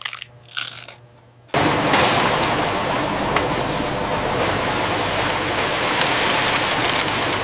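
A couple of faint crunches, then about a second and a half in a sudden jump to a loud, steady machine noise with a few faint ticks through it.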